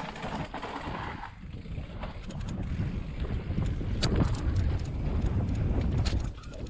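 Mountain bike rolling fast over a dirt trail: tyre rumble and wind on the microphone, growing louder as the bike picks up speed about two seconds in, with a few sharp clicks and rattles from the bike over bumps.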